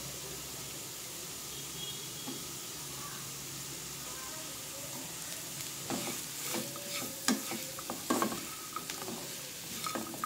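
Sliced snake gourd and onions sizzling in oil in a non-stick frying pan, a steady hiss. From about six seconds in, a slotted spatula scrapes and tosses the pieces in a run of short strokes.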